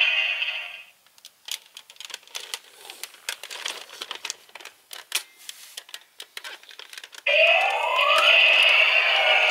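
Electronic sound effects from a Gokaiger pirate-ship toy blaster's speaker stop about a second in, followed by several seconds of scattered light clicks and knocks from its plastic parts. Near the end a loud electronic sound effect with a rising tone starts again.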